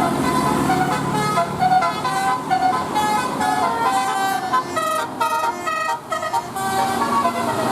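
Telolet multi-tone bus horn playing a quick tune of short notes that step up and down in pitch, several horn tones sounding together.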